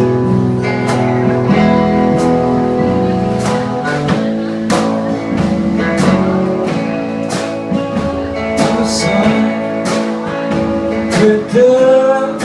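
A live band plays the instrumental opening of a song: strummed guitar over a steady beat.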